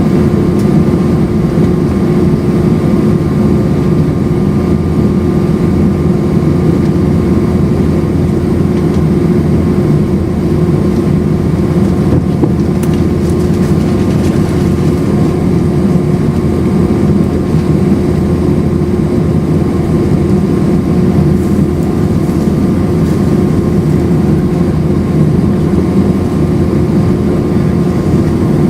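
Loud, steady roar of an Airbus A319's IAE V2500 turbofan engines heard inside the passenger cabin, with a steady hum running through it.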